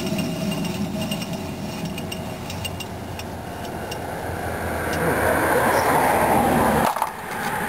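Rough, rumbling grind from a 2001 Chevy Prizm wheel with a bad wheel bearing as the wheel turns. It grows louder over the second half and cuts off suddenly near the end.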